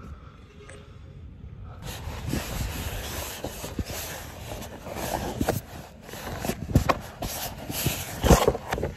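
Sand sled sliding slowly over dune sand: a rough scraping hiss that sets in about two seconds in, with a few knocks in the second half.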